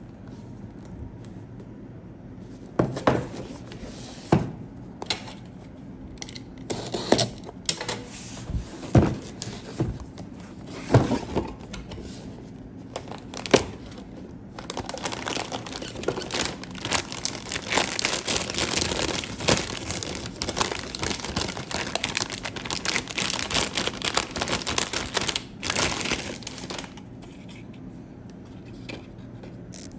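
Plastic and paper packaging being handled: scattered knocks and rustles, then about ten seconds of steady crinkling from about halfway in, stopping a few seconds before the end.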